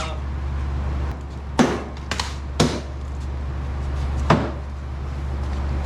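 Four sharp knocks, like parts or tools being handled during a vehicle teardown, each with a short ring, over a steady low hum.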